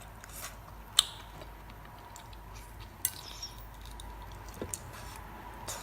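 Quiet eating sounds: a few scattered light clicks and taps of utensils and food, with a sharper click about a second in and another about three seconds in.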